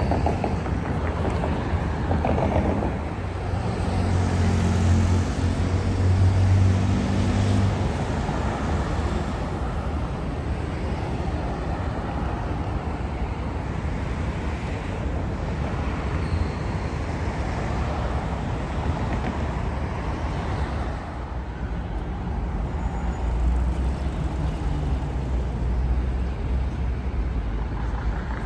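Road traffic: cars and other vehicles running and passing in a steady city hum. A vehicle engine is louder for a few seconds about four to eight seconds in, and a deeper rumble rises again near the end.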